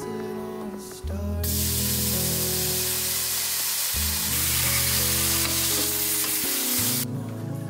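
Food sizzling in hot oil in a stainless steel frying pan on a gas stove, starting suddenly about a second and a half in and cutting off near the end, over soft background music.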